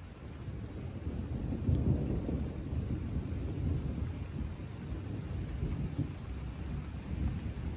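A long, low roll of thunder that swells over the first two seconds and keeps rumbling, with rain falling throughout.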